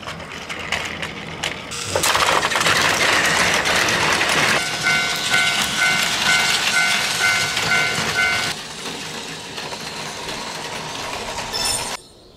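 Battery-powered Plarail toy trains rattling along plastic track: a steady noisy clatter that gets loud about two seconds in and eases off after about eight and a half seconds. In the middle, a toy level crossing's electronic warning bell rings about twice a second for roughly four seconds.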